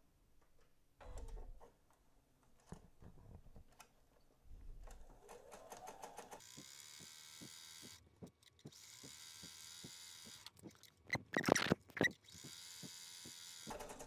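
Electric sewing machine stitching through cotton fabric and batting: the motor speeds up with a rising whine about five seconds in, then runs steadily with an even ticking of the needle. It stops briefly twice, and a few louder knocks come between the runs.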